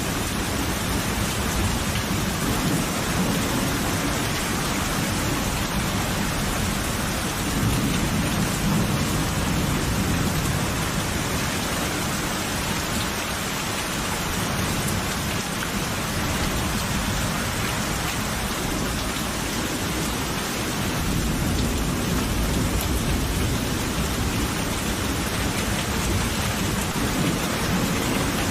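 Steady heavy rain falling, with low rolls of thunder rumbling beneath it, swelling about a third of the way in and again later.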